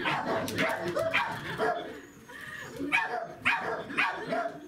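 Pembroke Welsh corgi yipping and whining in excitement: a quick run of short, high cries, some sliding upward, with a brief lull about two seconds in.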